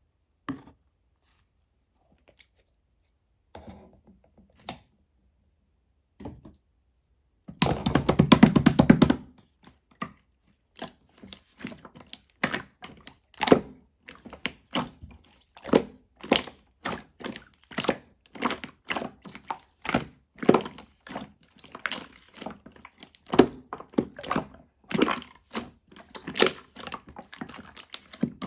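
Clear slime being pressed and folded by hand, making sharp clicking and popping sounds, one to three a second. The first seconds are nearly silent apart from a few soft clicks, and a dense crackling burst comes about eight seconds in.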